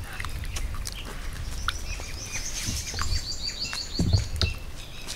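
A small bird chirping a quick run of high notes from about two seconds in until near the end, with a few soft low thuds as a hand squeezes pearl millet dough in a clay pot of liquid.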